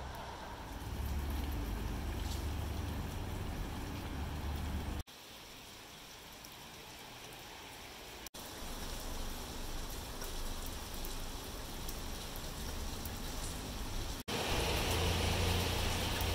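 Outdoor street ambience: a steady hiss with a low rumble like distant traffic, changing abruptly three times.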